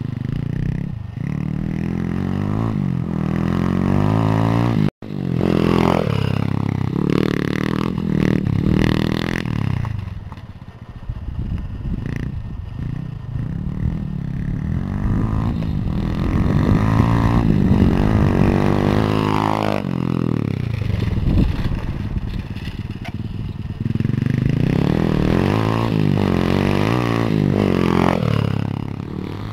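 Pit bike engine revving as the bike is ridden, its pitch climbing and dropping over and over with the throttle and gear changes. There is a short break in the sound about five seconds in.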